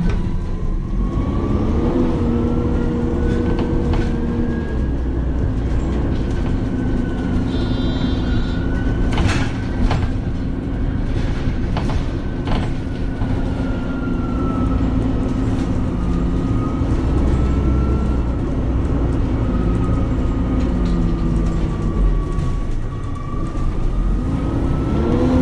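MAN Lion's City hybrid city bus (Euro 6) running: a steady engine drone whose pitch climbs as it speeds up, about two seconds in and again near the end. Over it a thinner high whine slowly rises and falls, with a few sharp knocks and rattles in the middle.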